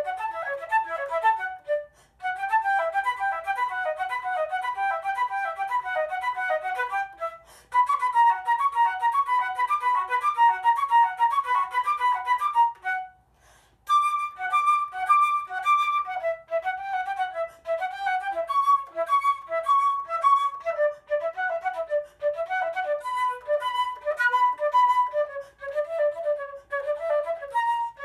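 Solo flute played in phrases of quick, running notes, with short breath pauses about 2, 7.5 and 13 seconds in.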